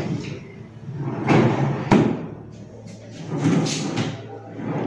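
Cabinet drawers sliding along their runners as they are pulled open and pushed shut. There are two strokes, and the first ends in a sharp knock about two seconds in.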